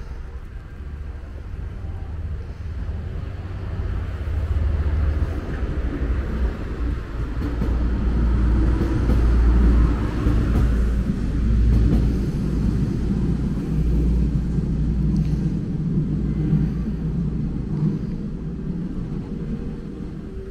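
Train passing over a level crossing: a low rumble that builds, is loudest around the middle and fades away as it goes past.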